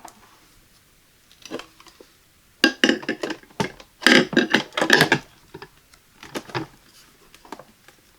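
Hard clicks, taps and knocks in several short clusters, the busiest a little past the middle: parts of a Cuisinart DCC-3200P1 coffee maker being handled.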